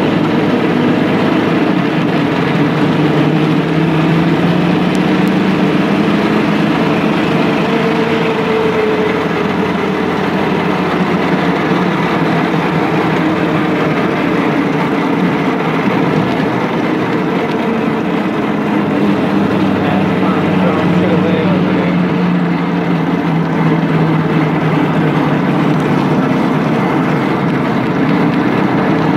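Custom off-road go-kart's engine running at low speed, a steady drone whose pitch drifts gently up and down with the throttle.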